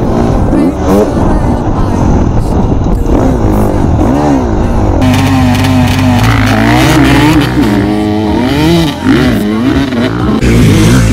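Motocross bike engines revving, their pitch rising and falling over and over as the throttle is worked on the dirt track. About five seconds in the sound changes to the bikes heard from behind as two riders pull away.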